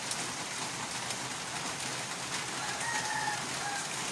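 Steady rain falling, with a faint rooster crow lasting about a second and a half, a little past halfway through.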